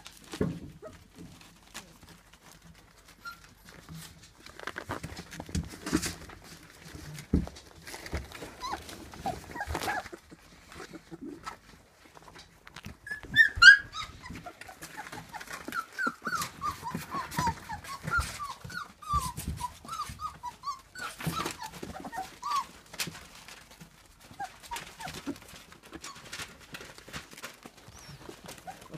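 Puppies whimpering: a run of short, high whines that fall in pitch, through the middle of the stretch, with one sharp, loud cry where it begins. Around it, scattered rustles and knocks of the puppies scrambling against the microphone.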